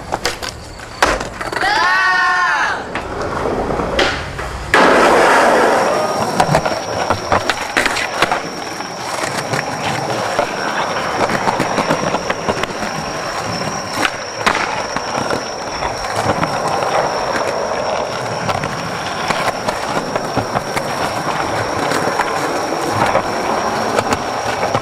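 Skateboard wheels rolling over rough concrete, a continuous rumble from about five seconds in, with scattered sharp clacks of the board's tail and wheels hitting the ground. A short shout about two seconds in.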